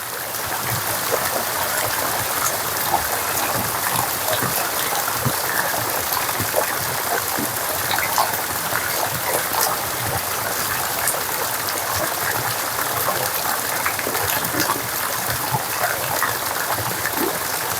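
Rain falling steadily, an even hiss of water with many small drop taps scattered through it.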